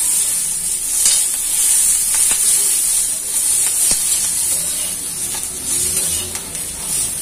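Green chillies sizzling in oil on an iron tawa over low gas, a steady hiss. A slotted steel spatula scrapes and taps on the tawa several times as the chillies are turned.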